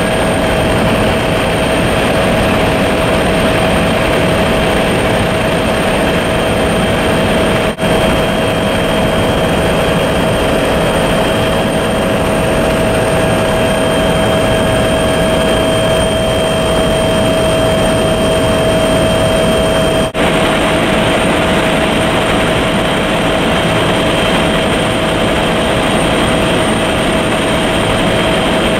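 Aircraft in flight: a loud, steady engine drone with a constant high whine over it. The sound breaks off for an instant twice, about 8 and 20 seconds in.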